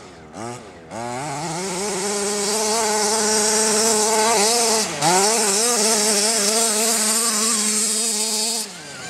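Small 30.5 cc two-stroke engine of a 1/5-scale RC car, worn with somewhat weak compression. It gives a couple of short throttle blips, then is held at high revs for several seconds with a brief dip about halfway, and drops off near the end. It is running without getting into second gear.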